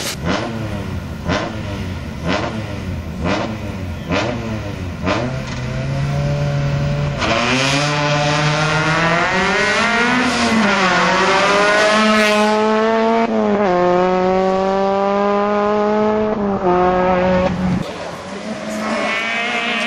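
Rally car engines at full throttle. For the first few seconds the revs rise and fall in quick succession. Then a car accelerates hard, its engine note climbing steadily and dropping sharply at each gear change.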